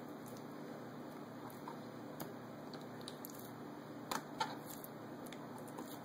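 Knife slicing raw chicken breast on a white cutting board: soft, wet handling of the meat with a few sharp clicks of the blade striking the board, several close together about four seconds in.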